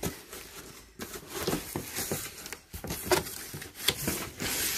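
Packaging rustling and items being handled during unboxing: irregular crinkles, scrapes and light knocks starting about a second in.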